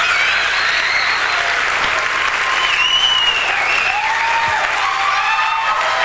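Audience applauding steadily, with high whistles gliding above the clapping.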